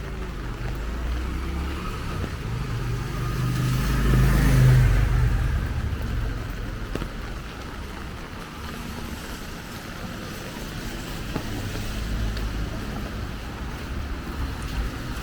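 A car passing on a wet street: its engine rumble and tyre hiss swell to a peak about four to five seconds in and fade away, then a lower traffic rumble returns near the end.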